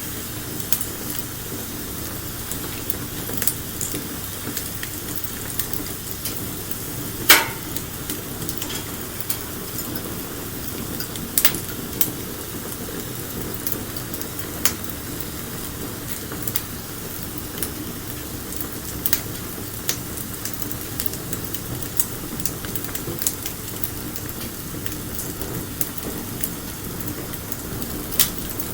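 Wood bonfire crackling: a steady hiss with scattered sharp pops and snaps. One louder pop comes about seven seconds in.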